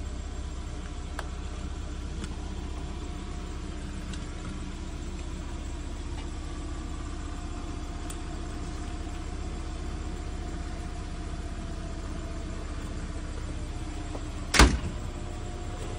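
A steady low engine hum, like a vehicle idling, runs throughout. About fourteen and a half seconds in comes one sharp knock, the loudest sound.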